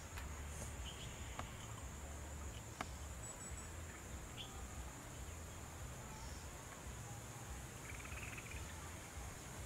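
Insects droning steadily on one high pitch in rural fields, over a low rumble, with a couple of faint clicks in the first few seconds and a brief chirp near the end.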